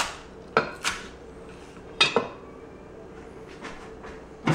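Chef's knife chopping green onions on an end-grain wooden cutting board: a handful of sharp knocks of the blade hitting the board in the first couple of seconds, then a pause and one more knock at the very end.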